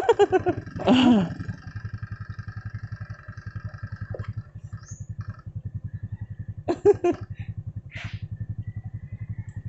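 Motorcycle engine running at a slow, even beat of about seven pulses a second. A steady high tone runs alongside it and stops about four seconds in.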